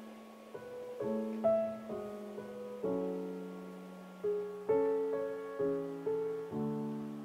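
Background piano music: single notes and chords struck about every half second and left to ring out.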